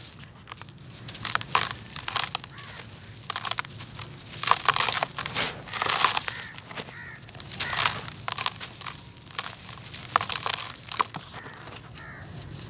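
Hands crumbling and squeezing dry, gritty grey dirt. Lumps break with irregular crunches, and powder and grit trickle through the fingers in between.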